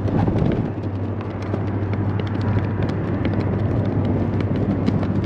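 Footsteps knocking on the wooden plank deck of a suspension bridge: many irregular knocks over a steady low rumble.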